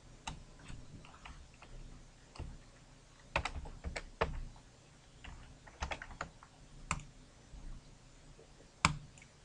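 Computer keyboard typing: irregular keystrokes, a few a second, as a filename is typed, then one louder click near the end, a mouse click.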